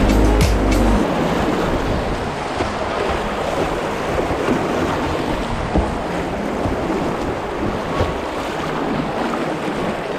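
Whitewater rushing and splashing over shallow rocks around a kayak running a low-water rapid, as a steady loud wash with a few brief splashes, with wind on the microphone.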